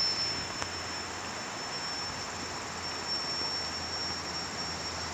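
A forest insect's steady high-pitched buzz over the even hiss of a flowing river.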